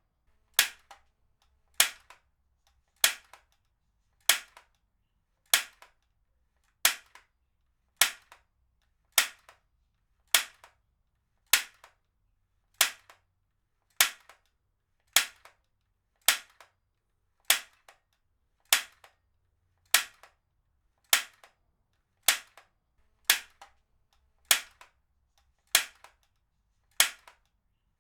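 Heavy-duty stapler fired over and over at an even pace, a sharp snap about once every second and a quarter, each followed by a faint second click.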